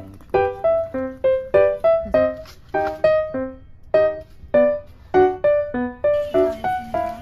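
Background music: a light keyboard melody of short single notes that fade quickly, about three a second.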